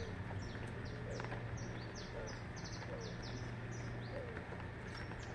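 A flock of small birds chirping, with many quick, high, downward-slurred chirps overlapping throughout and a few lower, softer calls between them.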